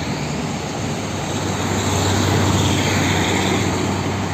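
Steady hiss of a water jet spraying a muddy toy truck clean, over a low steady hum from the sprayer.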